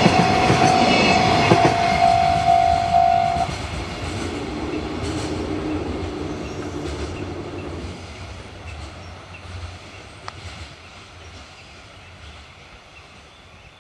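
Container freight train running past and away, its wagons clacking over the rail joints, the rumble fading steadily. A steady high tone is heard until about three and a half seconds in and then stops.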